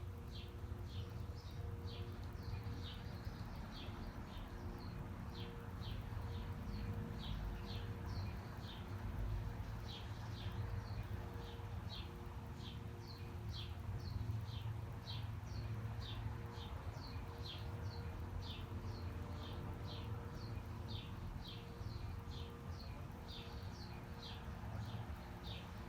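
A bird chirping over and over, about two short chirps a second, over the steady low rumble of city traffic, with a faint steady hum.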